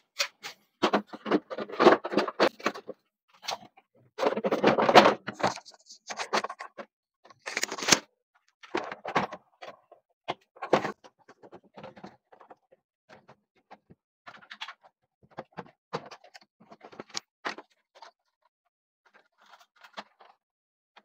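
Plastic front cover of a Samsung wall-mounted split air conditioner being unclipped and lifted off: irregular clicks, knocks and plastic scraping, busiest in the first few seconds and sparser afterwards.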